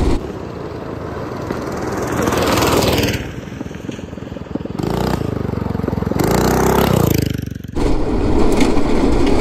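Small gasoline engines of a go-kart and a minibike racing past at full throttle, their pitch arching up and then down as they go by. About eight seconds in, this changes suddenly to the go-kart's engine running flat out close up.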